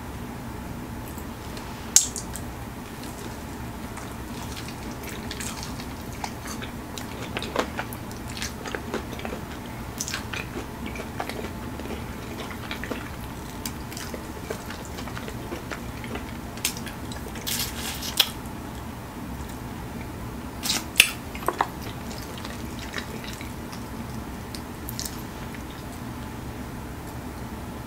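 Biting and chewing of fried chicken wings coated in crushed Flamin' Hot Cheetos: scattered crunches and mouth clicks, the sharpest about two seconds in and around twenty-one seconds in.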